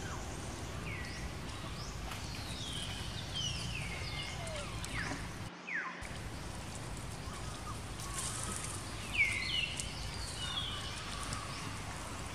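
High-pitched animal calls repeated over steady outdoor background noise, many of them sliding sharply downward in pitch. The sound drops out briefly about halfway.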